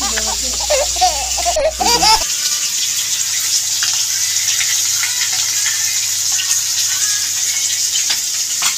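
Catla fish steaks sizzling as they shallow-fry in hot oil in a pan: a steady hiss with light scattered crackles.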